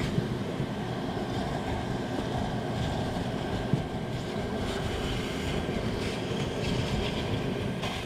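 Bee vacuum running steadily, its hose nozzle sucking live honeybees off the wooden framing of a hive cavity.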